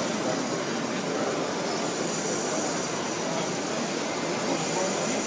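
Wood lathe running, with a steady rushing noise that holds an even level throughout.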